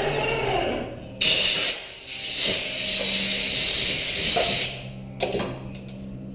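Compressed-air blow gun blowing metal chips off a CNC milling machine's table: a short blast about a second in, a longer blast of about two seconds, then a brief puff near the end. A low steady hum runs underneath.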